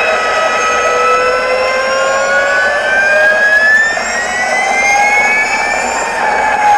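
Electric motorcycle running at speed: the electric motor's high whine, several tones at once, slowly rising and falling in pitch with the bike's speed over a hiss of wind and tyre noise.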